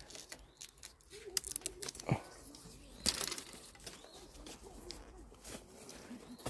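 Rustling and crackling of leaves and stems being handled, with scattered clicks and one sharper snap about three seconds in, and faint bird calls.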